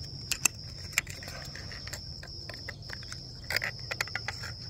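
Plastic cable cover being pressed and snapped onto a metal mounting bracket: a few sharp plastic clicks, a couple near the start and a cluster about three and a half seconds in. A steady high insect chirr runs underneath.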